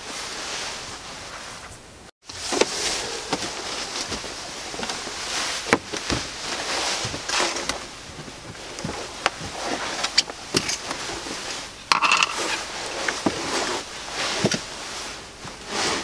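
Clothing rustling and scraping with scattered clicks and knocks as a person shifts about close to the microphone; the sound cuts out completely for a moment about two seconds in.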